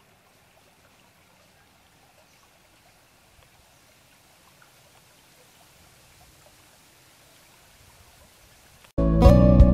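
Faint, even sound of a shallow stream flowing over stones. Near the end, loud strummed acoustic guitar music starts abruptly.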